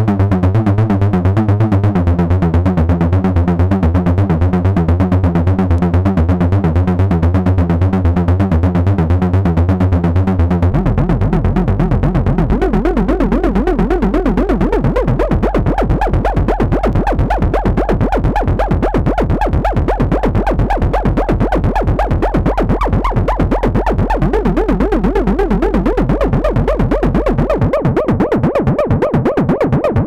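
Behringer System 100 analog modular synthesizer playing an FM and oscillator-sync patch: a fast run of repeating electronic pulses over a sustained bass note. About eleven seconds in the bass drops lower, and the tone then opens up brighter; the low bass falls away near the end.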